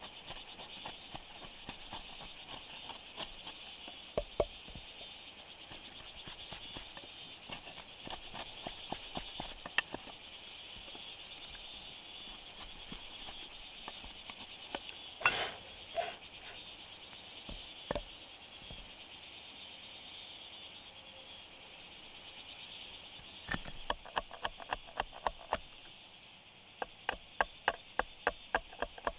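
Steady, high-pitched chorus of insects, with scattered sharp taps and knocks over it; about fifteen seconds in a few louder knocks, and in the last five seconds a run of even taps, roughly two a second.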